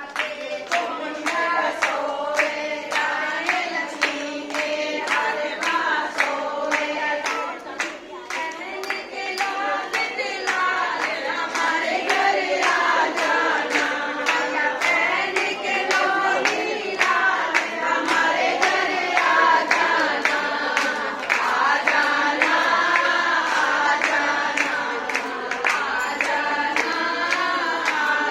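A group of women singing a Hindi devotional bhajan together in unison, clapping their hands to a steady beat.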